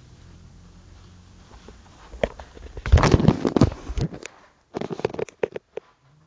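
Loud close-up scuffling and knocking for about two seconds, starting about two seconds in, then a quick cluster of sharp clicks and taps a second later.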